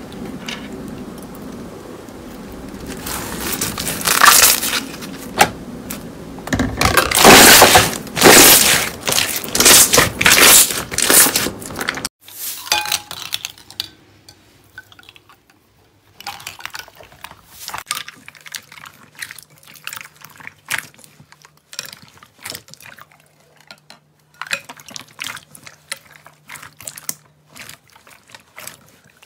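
Slime squelching and crackling as it is pressed through a metal wire grill rack, loudest in the first half and stopping abruptly about 12 s in. Then quieter squishing and clicking as clear slime is squeezed by hand around plastic lipstick tubes.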